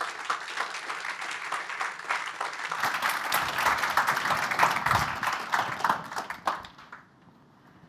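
Audience applauding, growing fuller about three seconds in and dying away near the end.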